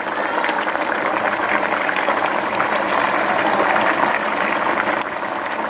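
Mutton karahi bubbling at a steady boil in its pan as its broth is cooked down, with a few faint clicks scattered through it.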